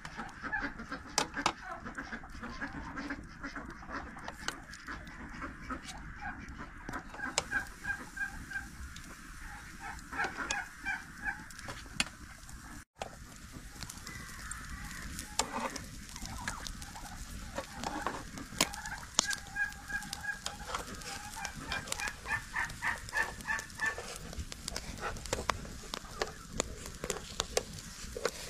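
Farmyard poultry calling in runs of short repeated notes, with sharp clinks of metal skewers against a steel charcoal grill as they are laid across it.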